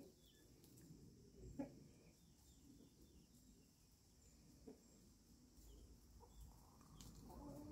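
Near silence broken by a few faint, scattered clucks from foraging hens and chicks, the plainest about one and a half seconds in.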